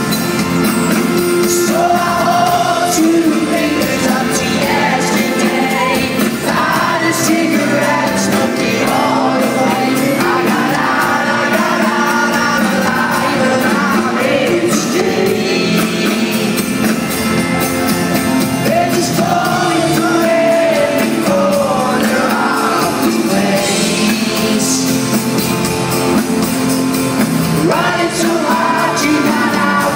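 Live concert music: a male singer singing with an acoustic guitar and band backing, amplified in an arena and heard from among the audience, with some crowd shouting.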